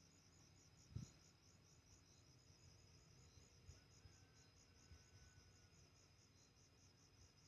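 Faint cricket chirping steadily, a high pulsing trill at about five pulses a second. A brief low thump comes about a second in.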